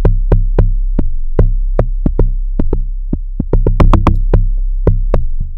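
Amapiano beat playing back: a deep, sustained bass runs under a busy pattern of sharp drum-machine hits, several a second.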